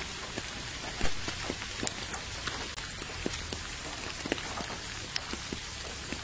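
Steady rain falling on a puddle and wet ground: an even hiss dotted with many separate drop splashes, one louder splash about a second in.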